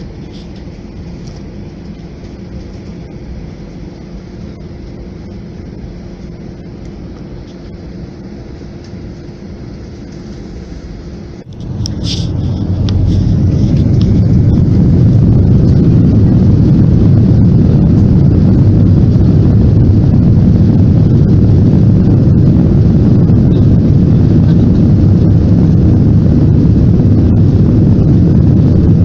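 Jet airliner cabin sound: a steady engine hum at first, then about twelve seconds in a sharp rise to a much louder, deep steady rumble as the engines spool up to takeoff power for the takeoff roll down the runway.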